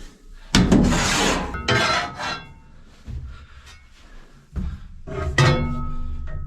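Small shovel scraping and scooping distiller's grain inside a steel grain bin: several rasping scrapes, the loudest about half a second in and near the end, with a faint metallic ring.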